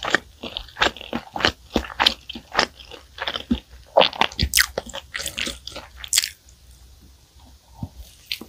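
Close-miked crunching and chewing of flaky baked pastry, several crisp crunches a second. The crunches die down about six seconds in, and a new crunchy bite comes near the end.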